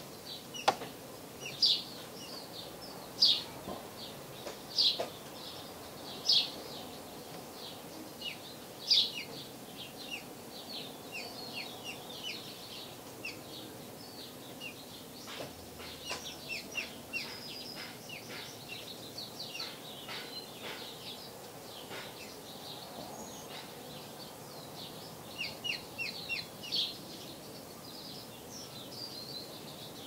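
House finches chirping at the nest while the parents feed the nestlings. Short, high chirps come as scattered loud notes over the first nine seconds, then in denser runs around the middle and again a few seconds before the end.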